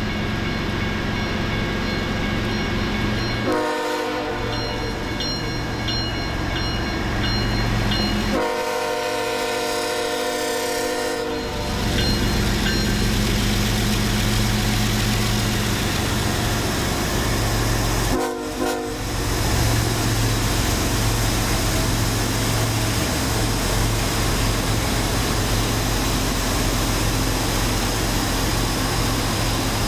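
A BNSF freight train's diesel locomotive sounds its air horn as it approaches: a short blast, a long blast of about three seconds some 8 seconds in, and another short blast near 18 seconds. A bell dings steadily for a few seconds after the first blast. From about 12 seconds on, the lead diesel locomotives run loud and steady as they pass close by.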